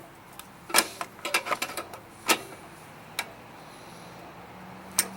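Sharp metallic clicks and clacks, a handful spread over a few seconds with a quick cluster about a second in, as vise-grip pliers are worked against the spring-loaded brake and kill lever of a lawn mower engine.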